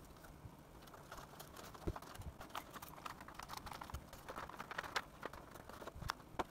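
Irregular light taps, clicks and rustling as hands handle a foam board fuselage and its servo wires.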